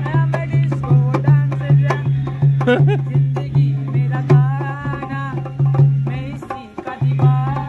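Dholak (two-headed barrel drum) played by hand in a steady folk rhythm of deep, booming strokes, with a high, wavering voice-like melody over it. The drum briefly drops out about six and a half seconds in, then resumes.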